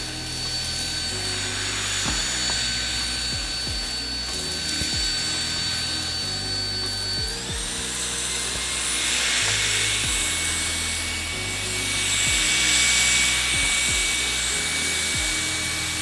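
LG CordZero A9 cordless stick vacuum's motor running with a steady high whine that steps up to a higher pitch about seven seconds in. Background music with a steady beat plays along with it.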